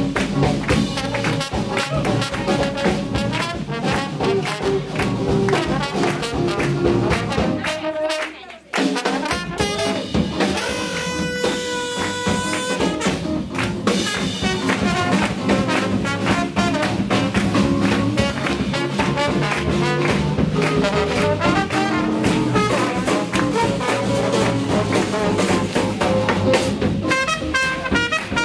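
Live swing jazz band playing up-tempo, a trumpet leading over drums and upright bass. About eight seconds in the band stops for a moment, then comes back in with long held horn notes.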